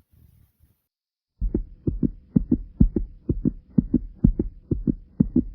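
A human heartbeat pounding after running in place, a fast run of paired lub-dub thumps at about two beats a second. It starts about a second and a half in, after a faint low rumbling.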